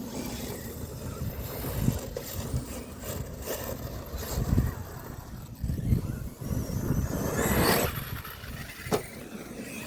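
Electric RC off-road trucks running over dirt: motor whine and tyre noise over a continuous low rumble, with a few sharp knocks from landings or impacts.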